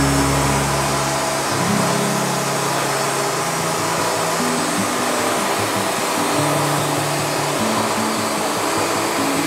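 Portable band sawmill running steadily, its blade cutting lengthwise through a monkey puzzle log, with background music over it.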